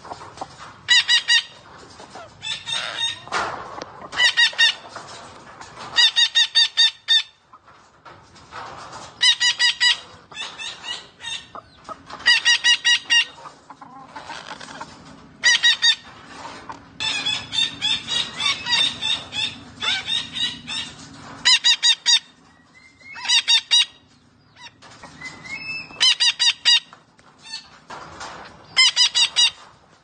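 Derbyan parakeet calling loudly in short bursts, each a rapid run of repeated notes, with a burst every two to three seconds.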